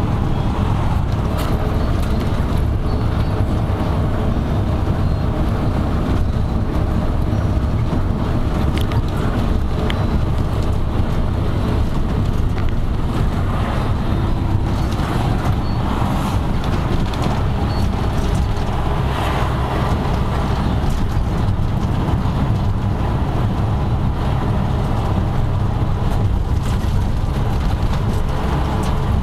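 Steady low rumble of a moving bus, engine and road noise heard from inside the passenger cabin, with a few faint light rattles.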